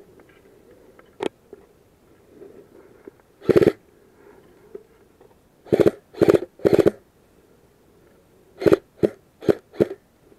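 Footsteps crunching through dry leaf litter and scrub: a sharp snap about a second in, one step a little later, then a run of three steps and a run of four, about two steps a second.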